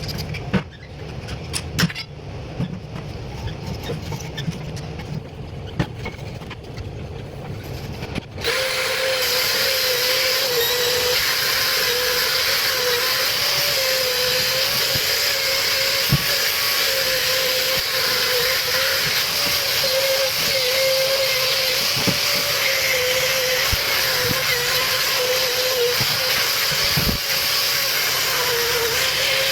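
A machine switches on about eight seconds in and then runs steadily, with a loud hiss and a slightly wavering hum. Before that there is a low rumble with scattered clicks.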